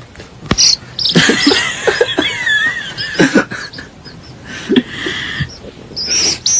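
Animal sounds: high squeaks and wavering chirping calls, with a few sharp knocks in between.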